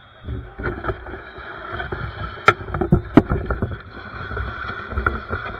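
Handling noise of the camera being moved right at the microphone: a low, uneven rubbing rumble with scattered knocks and two sharp clicks, about two and a half and three seconds in.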